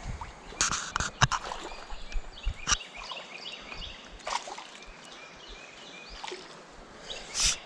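Someone wading into a flowing creek: water splashing and sloshing around the legs in several separate bursts, the loudest about a second in and just before the end. A repeated high chirping runs in the background.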